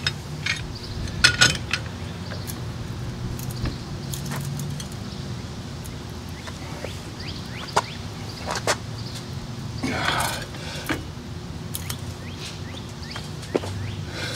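Scattered sharp metal clinks, with a short rattling cluster about ten seconds in, as a pipe wrench is set on a steel pipe clamped in a hitch-mounted vise and the vise's sliding T-handle is worked. A steady low hum runs underneath.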